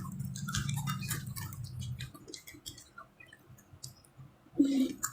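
Close-mouthed eating of a crunchy spicy macaroni snack: irregular crunching and wet mouth clicks. A low hum sits under the first two seconds, and there is a short voiced sound near the end.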